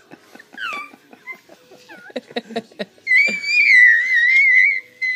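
A five-month-old baby making high-pitched monkey-like noises: a short falling squeal, a run of quick clipped grunts and clicks, then a long, loud, wavering squeal.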